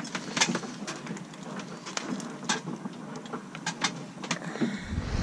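Spoon and food pouch scraping and clicking against a ceramic mug as a thick rehydrated meal is scooped out: scattered irregular clicks and scrapes. Near the end a loud rush of wind and sea noise on the microphone cuts in.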